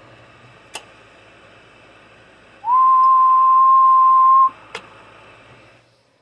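A person whistles one steady note into the transmitter's microphone for about two seconds, sliding up into it at the start. It modulates the transmitter and amplifier on AM. Under it is a low hiss and hum, with a click before the note and another just after it.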